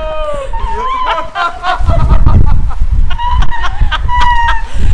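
High-pitched, choppy laughter in short bursts, with wind rumbling on the microphone from about two seconds in.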